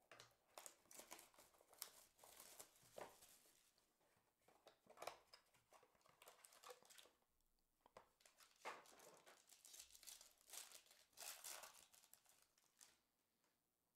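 Faint crinkling, rustling and tearing of card packaging: a Panini Crown Royale basketball box is opened by hand and a foil card pack is torn open, the foil crinkling in the later part.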